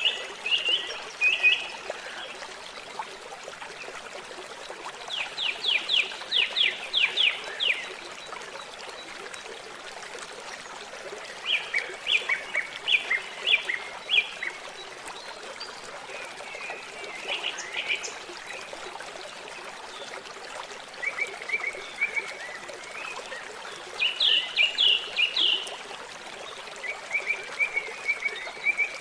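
Birdsong: short phrases of rapid, bright notes repeated every few seconds over a steady trickle and rush of water.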